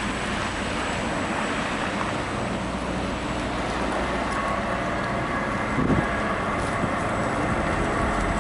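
Steady wind noise on the microphone and tyre rumble from a Ninebot One S2 electric unicycle being ridden, with a brief low bump about six seconds in.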